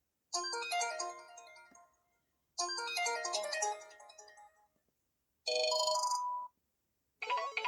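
Built-in tones of a Samsung Array cell phone: a short melodic jingle of about two seconds plays twice with a pause between. Then a different, shorter tone sounds, and another jingle begins near the end.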